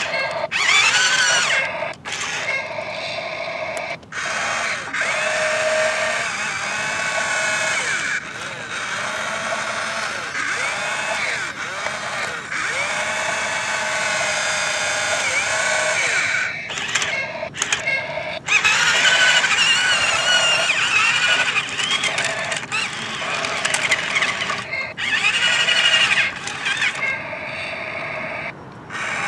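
Toy CAT excavator's small electric gear motors whining as the boom, arm and bucket move, the pitch sliding up and down. It stops and starts again with brief breaks several times.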